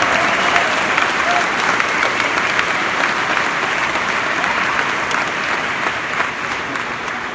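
A crowd applauding steadily after a line in a political speech, with the applause slowly fading near the end.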